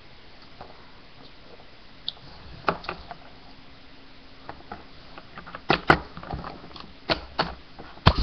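Plastic Littlest Pet Shop toy figures being handled close to the microphone: scattered clicks and knocks over a faint steady hiss, sparse at first and coming louder and faster in the second half.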